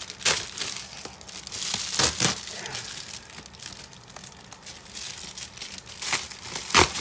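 A plastic Amazon poly mailer bag crinkling as it is handled and opened, with sharp crackles about a quarter second in, around two seconds in, and twice near the end.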